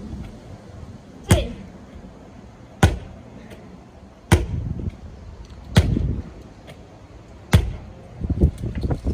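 A medicine ball thrown back and forth between two people, with a sharp smack each time it is caught in the hands: five smacks about a second and a half apart, then a few softer thuds near the end.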